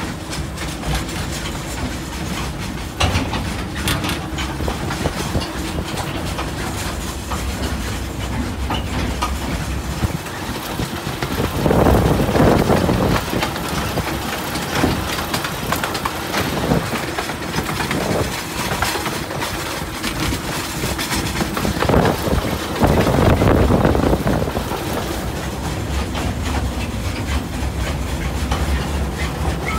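Narrow-gauge railway train running, heard from on board: a steady rumble of wheels on the track with scattered clicks, growing louder for a second or two about twelve seconds in and again about twenty-three seconds in.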